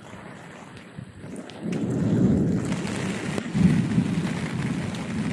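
Thunder rumbling over steady rain, building up about a second and a half in and swelling twice.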